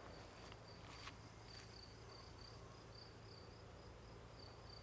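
Faint insect chirping over near silence: a short high-pitched pulse repeated about three times a second.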